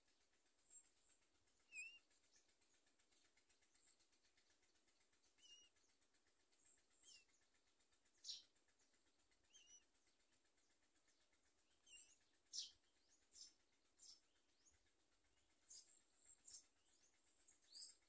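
Common myna nestlings giving begging calls: faint, short, high-pitched squeaks and chirps, irregular and a second or so apart, some with a brief wavering note. The loudest come about eight and twelve seconds in.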